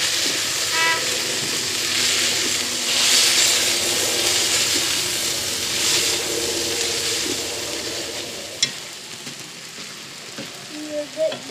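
Ground venison frying and sizzling in a cast iron skillet with onions and bell peppers while a potato masher works through the meat. The sizzle quietens in the last few seconds, and a single sharp click comes near the end.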